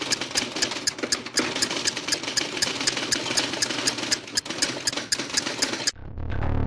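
Film projector clattering as a sound effect, with sharp clicks about four times a second. It cuts off suddenly about six seconds in, and electronic music with a heavy bass begins.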